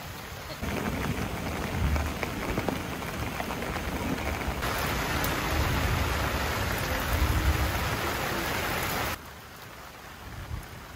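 Steady heavy rain falling as an even hiss. It grows louder about half a second in and again about four and a half seconds in, then drops off suddenly near the end.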